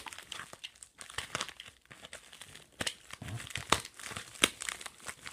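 Cardboard shipping box being torn open by hand, with irregular crinkling, crackling and tearing of the packaging.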